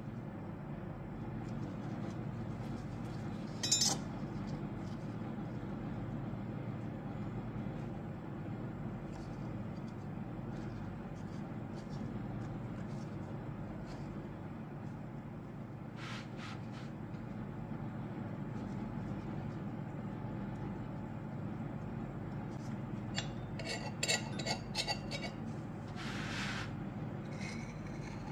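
Knife blade clinking and scraping against stainless-steel tart rings as excess pastry is trimmed: a sharp clink about four seconds in, another midway, and a quick run of clinks near the end, over a steady low background hum.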